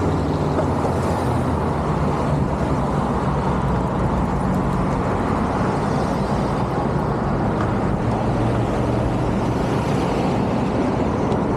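Longboard wheels rolling over pavement: a steady, even, low rolling noise with no breaks.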